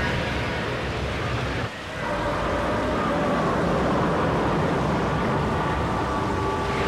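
Strong wind rushing steadily, with a short dip about two seconds in.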